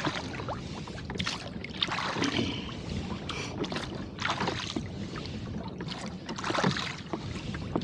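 Water sloshing and splashing around a rowboat being rowed, with short irregular splashes about every second as the oars work the water.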